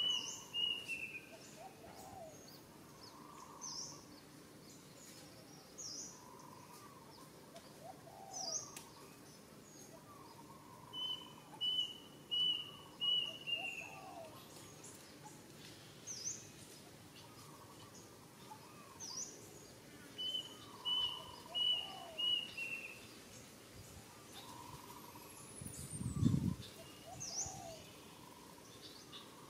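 Birds singing outdoors. One bird repeats a phrase of four or five short notes ending in a falling note, about every ten seconds, and short chirps from other birds come every few seconds between. Near the end there is a short low thump.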